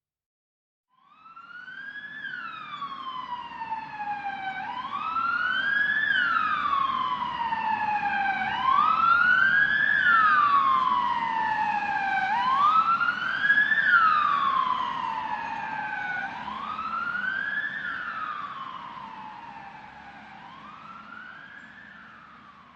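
Emergency-vehicle siren sounding a slow wail, each cycle a quick rise followed by a longer fall, about every four seconds. It grows louder to a peak around the middle and then fades away, with a low vehicle rumble underneath.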